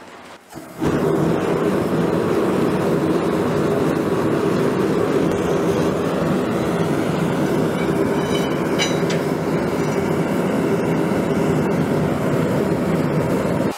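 Gas forge burner lighting about a second in, then running with a steady rushing noise.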